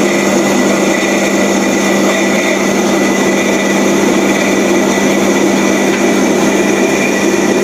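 Electric motor running steadily with a constant hum and whir, with no hammer blows.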